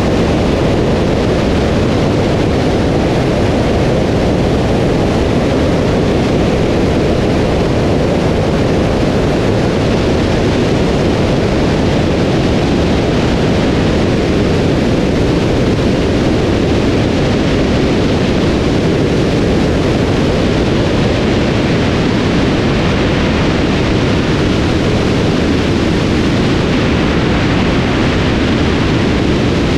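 Steady, loud rush of airflow over a camera mounted on the outside of a light aircraft in flight, blended with the drone of the aircraft's engine and propeller.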